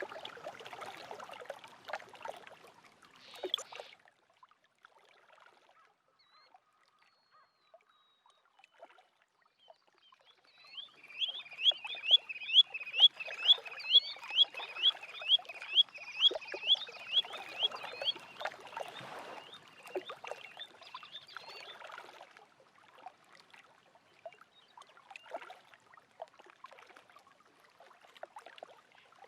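Small waves lapping at a lake shore. About ten seconds in, a bird calls a fast run of short, hooked, high notes, about two a second for some eight seconds; these are the loudest sound here.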